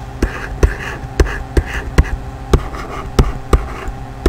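Stylus writing on a tablet surface: sharp taps about two a second as letters are dotted and started, with short scratchy strokes between them, over a low steady hum.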